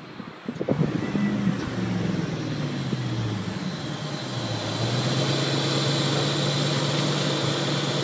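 1997 Chevrolet Camaro SS's LT1 V8 running through an SLP LoudMouth cat-back exhaust: its pitch falls as the car slows to a stop, then it settles into a steady idle about four seconds in.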